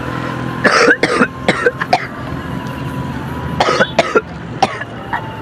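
A young man coughing in two fits, about a second in and again near four seconds. The cough comes from a cold of two days that has left his throat full of phlegm.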